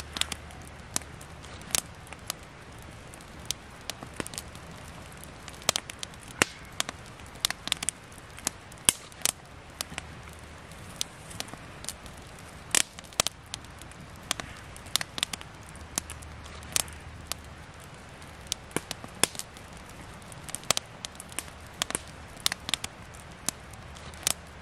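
Wood campfire crackling, with sharp irregular snaps a few times a second over a faint steady hiss.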